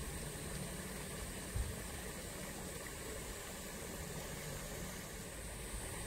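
Steady rushing of flowing water, with a brief low thump about one and a half seconds in.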